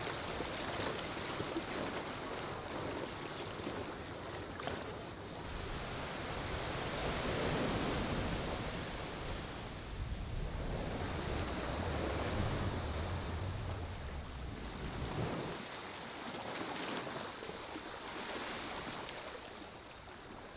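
Wind on the microphone and water lapping: a steady rushing noise that swells and eases in gusts, with a heavier low rumble in the middle.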